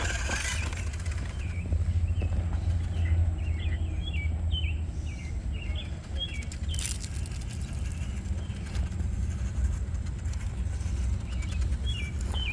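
A small songbird chirping in quick runs of short notes, one run in the first half and another near the end, over a steady low rumble; a single sharp click about seven seconds in.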